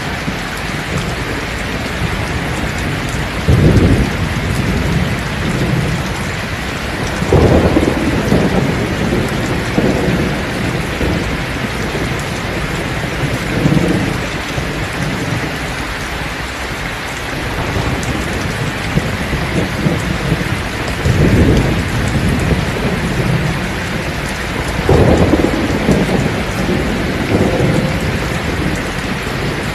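Heavy rain falling steadily, with thunder rumbling low about seven times, every few seconds.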